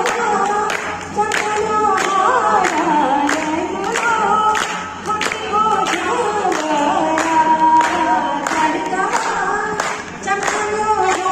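Voices singing a song together, with hands clapping along in time, about two claps a second.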